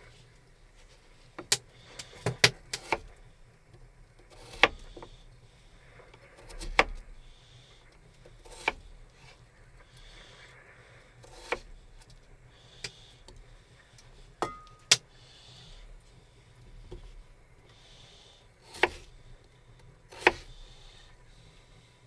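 Kitchen knife cutting peeled raw potatoes on a wooden cutting board. The blade knocks sharply on the board a dozen or so times at irregular intervals.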